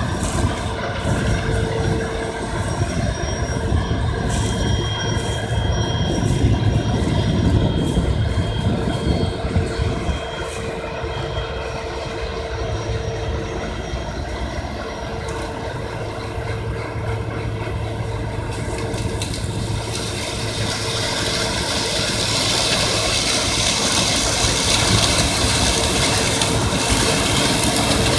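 Claas Lexion 480 combine harvester running steadily under load while harvesting corn, engine and threshing machinery together with a held mid-pitched whine. A higher hiss builds up about two-thirds of the way through.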